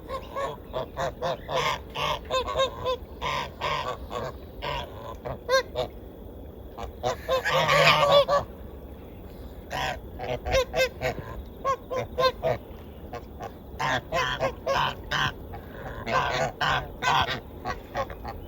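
Geese honking over and over in short calls, with one longer, louder call about seven seconds in.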